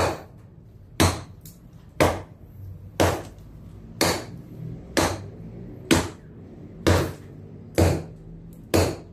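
Hammer blows striking the concrete of a tomb niche to break it open, sharp evenly paced strikes about once a second, ten in all.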